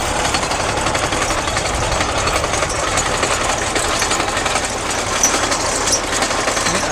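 Tractor engine running steadily under load, with the fast, even clatter of a KS-2.1 hay mower's reciprocating cutter bar.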